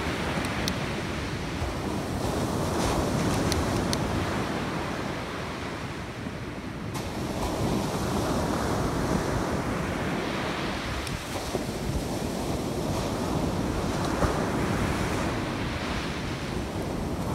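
Rough ocean surf breaking and washing up the beach, its rush swelling and ebbing wave by wave, with wind buffeting the microphone.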